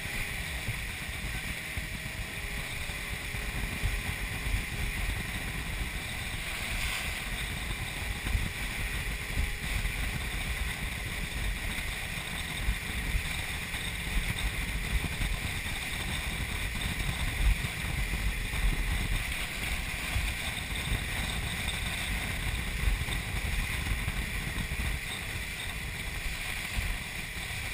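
Open passenger boat under way: steady wind buffeting the microphone in uneven low gusts over a constant hiss of water and boat noise.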